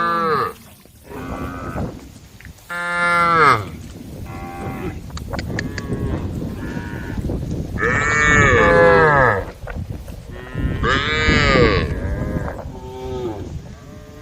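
Several cows mooing one after another, about six long calls that each rise and then fall in pitch, some loud and close and others fainter.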